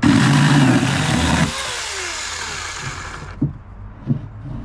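Electric chainsaw motor switched on at full speed, then released, winding down with a falling whine and stopping about three seconds in.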